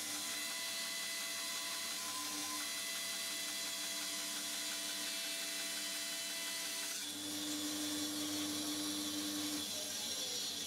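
Lumberjack BS305 12-inch band saw running, its blade cutting through a thick wooden board: a steady hiss over a motor hum. The sound changes about seven seconds in.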